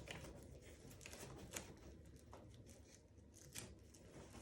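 Faint rustling of a stroller's fabric hood being handled and fastened with a Velcro strap, with a few light ticks.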